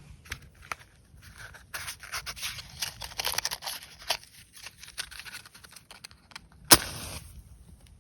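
Close scraping and crackling handling noises with scattered clicks, then one sharp knock near the end.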